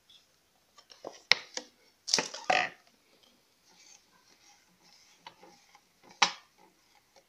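A stirring utensil clinking and knocking against a glass jar and the countertop: a few sharp taps about a second in, a short scraping clatter at about two seconds, and one more knock near the end.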